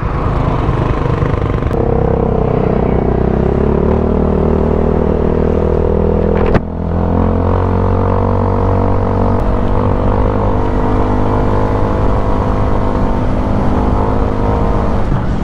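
Motor scooter engine running at a steady cruise, with wind noise rumbling underneath. The engine note sags slightly over the first few seconds and drops briefly about six and a half seconds in.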